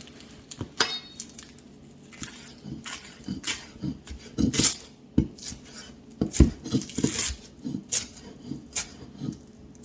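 Irregular light clinks, taps and knocks of kitchen utensils and dishes while food is handled at the counter.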